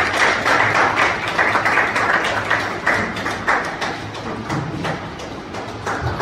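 Audience clapping: a dense patter of many hands that thins and dies down over the last couple of seconds.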